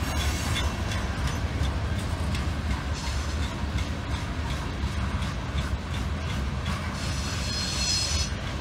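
Covered hopper cars of a CSX grain train rolling past: a steady low rumble with repeated clicks of wheels over the rail joints. A high-pitched wheel squeal comes in briefly at the start and again about seven seconds in.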